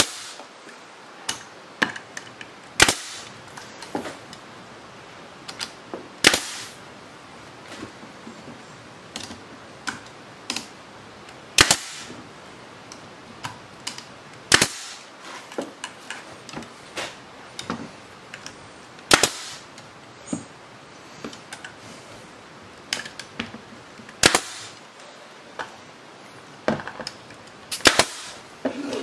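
Pneumatic Bostitch brad nailer firing brad nails into wooden strips, sharp shots at irregular intervals of a second or two, some louder than others, with smaller clicks and knocks between them.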